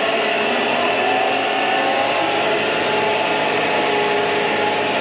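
Combine harvester running steadily under way, heard from inside the cab: an even mechanical drone with several steady tones.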